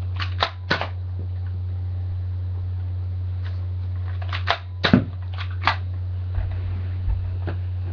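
Sharp plastic clicks and knocks of a Nerf pistol being primed, loaded and fired: three quick clicks at the start, a cluster of them about four and a half to six seconds in with the loudest near five seconds, and one more near the end. A steady low hum runs underneath.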